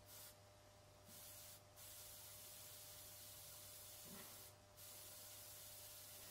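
Faint, steady hiss of an airbrush spraying fine detail, the air cutting off briefly three times as the trigger is let go. A soft knock about four seconds in.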